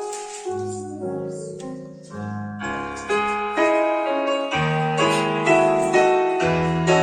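Piano-sounding keyboard playing slow sustained chords over a moving bass line, the instrumental introduction to a hymn.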